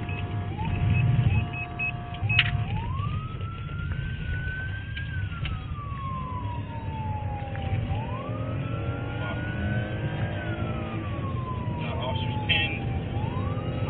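Police car siren heard from inside the car's cabin. It sounds a steady tone for about two seconds, then switches to a slow wail that climbs and falls about every five seconds, over the low rumble of the car's engine and tyres.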